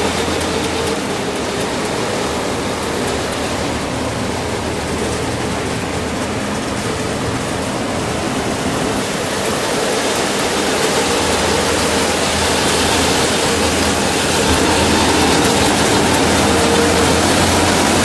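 Corn harvester running at work in a maize field: a steady engine hum with a dense clatter and rush of machinery chopping and handling the stalks. The noise grows a little louder in the second half as the machine comes closer.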